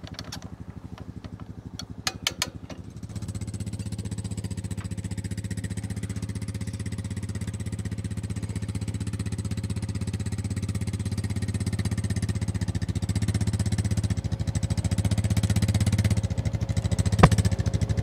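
ATV engine running at low speed as the four-wheeler creeps forward. It gets louder about three seconds in. A few light clicks come shortly before that, and a single sharp clank comes near the end.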